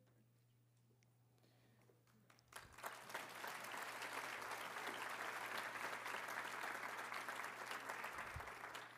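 Audience applauding. After near silence, the clapping starts about two and a half seconds in and stays steady.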